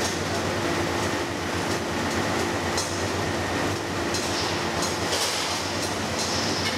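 Steady running of food-processing machinery on a fish cake production line: a continuous mechanical hum and rattle. A few short scrapes of a spatula against the stainless-steel hopper sit on top, as fish paste is pushed down into the machine.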